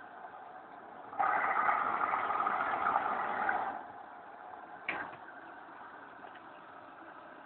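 Hoover Boilwash washing machine running with a steady low hum. About a second in, a much louder, noisy sound starts and lasts about two and a half seconds. A single sharp click comes near five seconds in.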